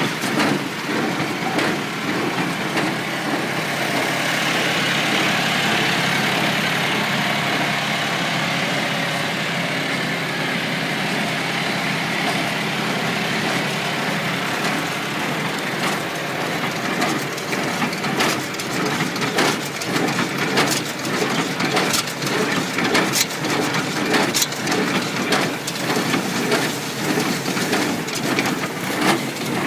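International Harvester 47 square baler running behind a tractor just above idle, feeding and compressing hay. It runs steadily, with sharp clacks growing more frequent in the second half.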